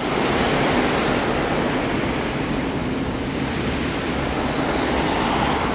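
Steady rush of water from a flooded street draining into a storm drain grate, with heavy rain pouring around it.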